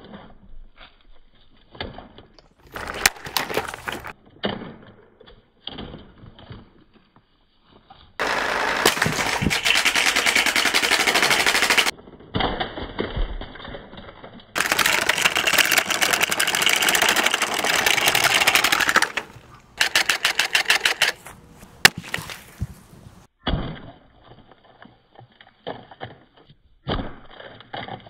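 Two long bursts, about four seconds each, of very rapid, dense rattling impacts, like automatic fire, as the mesh table fan is wrecked. They are followed by a quick run of separate sharp cracks and a few single knocks.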